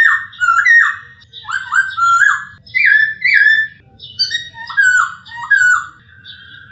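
Black-throated laughingthrush (poksay Hongkong) singing: loud, clear whistled phrases, mostly in pairs of short notes sliding down or up, with brief gaps between phrases, ending on a long steady held whistle.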